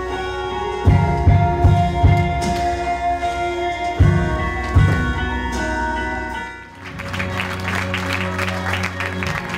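Theatre music with scattered drum hits and held notes dips briefly about two-thirds of the way in. An audience then breaks into applause while the music carries on underneath.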